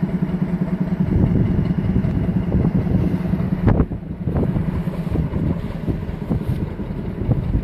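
Locomotive engine running steadily, with wind buffeting the microphone and rumbling over it from about a second in. A couple of sharp knocks come near the middle.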